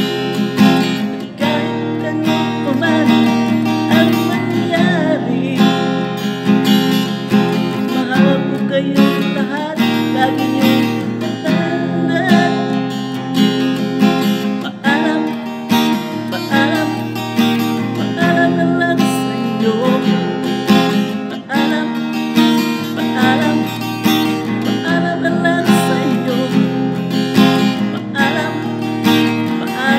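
A man singing to his own strummed acoustic guitar, a steady chord rhythm under a wavering sung melody.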